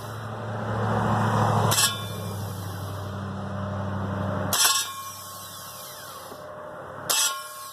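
Starter cranking a 2002 Nissan Altima 2.5L, a low whirring grind lasting about four and a half seconds before it stops, with sharp clunks at about two seconds, four and a half seconds and seven seconds. The owner puts the noise down to a bent flywheel.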